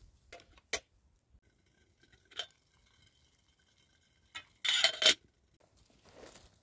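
Metal kettles clanking as they are handled: a few light knocks, then a clink about two and a half seconds in that rings on for a moment, and a louder clatter of metal about two seconds later.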